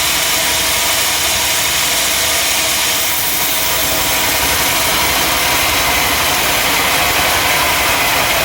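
Sawmill machinery running steadily: a loud, constant mechanical noise with no breaks.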